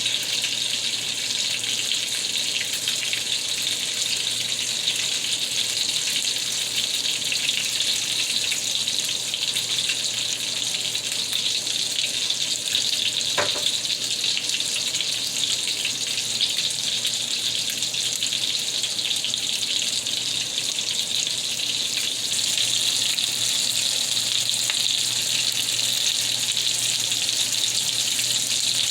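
Ground-beef Salisbury steak patties searing in mushroom butter in a hot pan: a steady sizzle while they brown.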